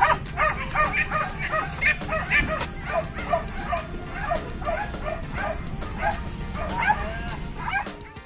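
Boar-hunting dogs barking over one another, a quick run of short barks, about three a second, over a low steady rumble. The barking stops abruptly near the end.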